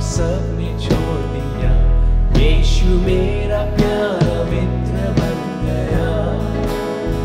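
Christian worship music from a band: guitar over sustained bass notes that change every second or so, with a melody above.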